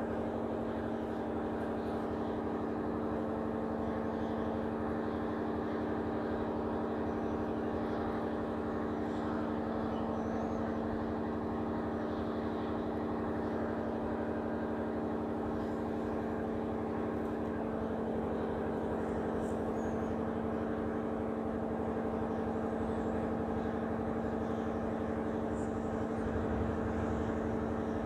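Steady machine hum made of several constant tones, running unchanged throughout, with one tone shifting slightly about two-thirds of the way in.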